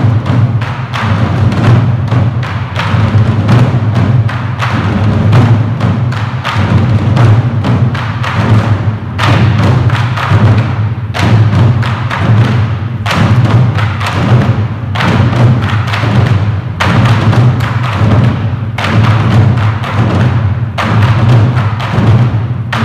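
An ensemble of Korean barrel drums (buk) on wooden stands beaten with sticks in a fast, continuous rhythm. Heavier accented strokes come about every two seconds in the second half.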